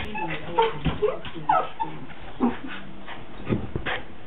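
A dog whining and yipping in short, high calls.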